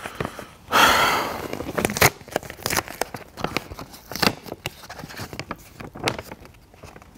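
A sheet of printer paper being unfolded and handled: a loud rustle about a second in, then scattered crinkles and crackles as the page is opened out.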